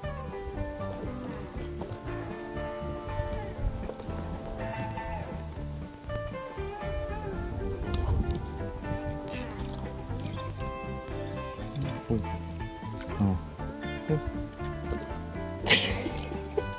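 Dense insect chorus: a steady, high-pitched pulsing drone. A single sharp knock comes near the end.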